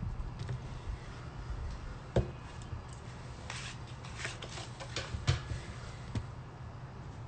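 Handling noise on a phone's microphone: scattered rubbing and scraping with a few sharp knocks, the sharpest about two seconds and about five seconds in, over a low steady hum.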